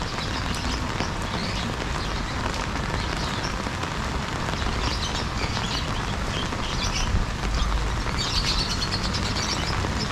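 Rainy city street ambience: a steady hiss with a low traffic rumble underneath and scattered high-pitched chirps.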